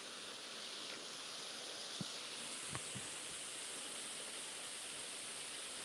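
Light clicks of a putter tapping a mini golf ball, three short ticks about two to three seconds in, over a faint steady outdoor hiss.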